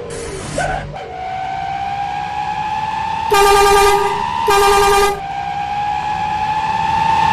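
Truck's basuri telolet horn sounding in short blasts: one ends about a second in, then two short loud toots come in quick succession near the middle. Underneath, a steady whine slowly rises in pitch.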